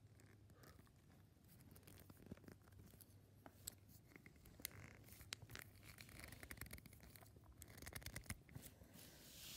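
Faint rustling and crinkling of a clear plastic bag being handled, with scattered small clicks and taps.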